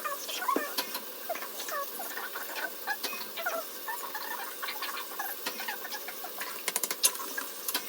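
Small animals squeaking and chirping, many short overlapping squeaks, with a quick run of clicks about seven seconds in.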